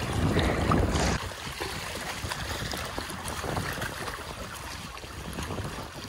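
Small sea waves lapping and washing around a rock in shallow water, with wind rumbling on the microphone, strongest in the first second.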